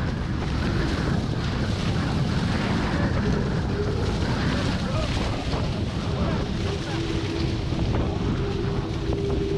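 Wind buffeting the microphone and water rushing and spraying past the hulls of a Hobie 16 catamaran sailing at speed, as a loud, steady rush. About two-thirds of the way through, a steady hum joins in.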